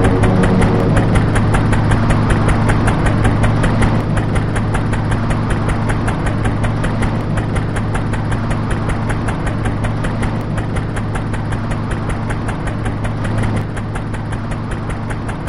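An engine running steadily: a low drone with a fast, even pulse, easing a little quieter after about four seconds and again near the end.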